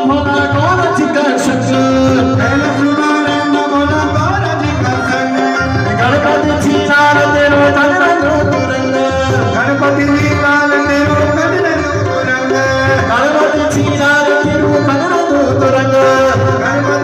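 Garhwali devotional bhajan music: melodic instruments and possibly voice over a steady tabla-style drum beat.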